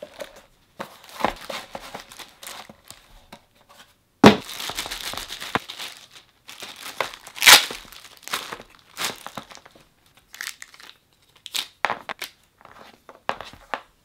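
Clear plastic bag crinkling and rustling as it is pulled open and off a laptop power adapter and its cord, in irregular bursts. There is a sudden louder burst about four seconds in, and the loudest one comes about seven and a half seconds in.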